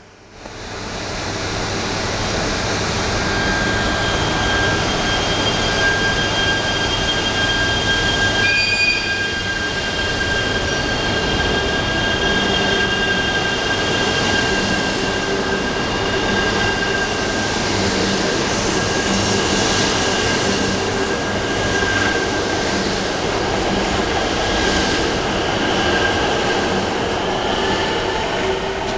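JR East E3 series 1000 mini-shinkansen train pulling out of a station and running past: a steady electrical whine over wheel and rail noise. A short high beep sounds about 8 seconds in, and near the end a whine rises in pitch as the train gathers speed.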